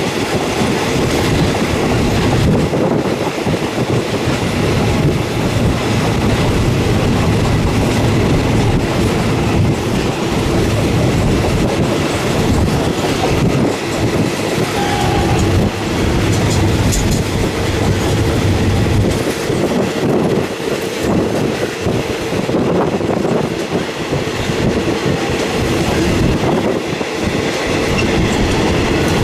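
Passenger train running along the track, heard from inside a third-class carriage with open windows: wheels clacking over the rail joints over a steady rumble and rush of air.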